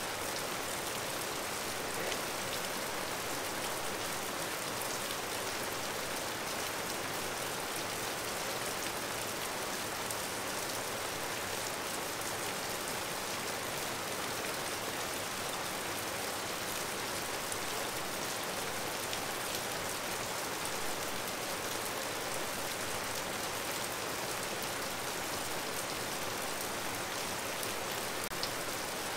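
Steady rain falling: an even hiss of downpour with faint ticks of individual drops.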